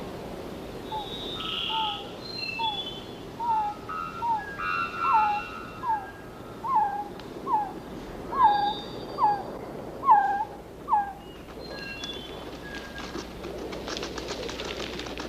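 Forest birds calling. One bird gives a series of about fourteen short whistled notes, each dropping in pitch, that grow louder and then stop about eleven seconds in, with other thinner bird calls scattered above. A dry, rasping buzz comes in near the end.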